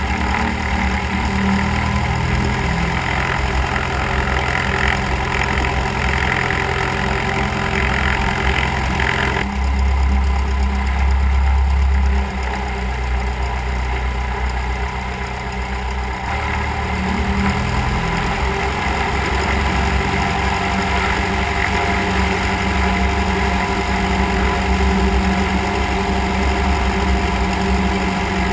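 Cessna 172's piston engine and propeller running at low taxiing power, heard from outside the cabin under the wing. The note is steady except for a change a third of the way in, when it turns deeper and briefly louder for a few seconds before settling back.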